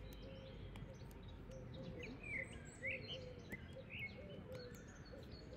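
Faint bird chirps, a scatter of short calls clustered in the middle, over a steady low background noise.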